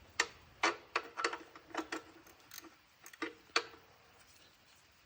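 A wrench turning the chain adjusters on a Honda 185S ATC to take up drive chain slack: about ten sharp, irregular clicks and clinks over the first three and a half seconds, then they stop.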